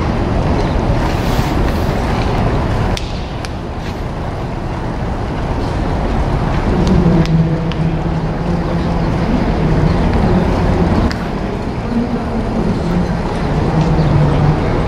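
Wind buffeting the microphone: a steady rumbling hiss, with a faint low hum coming and going in the second half.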